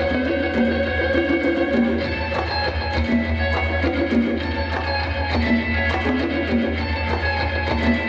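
Instrumental band music: electric guitar playing over congas and a drum kit, with a steady beat.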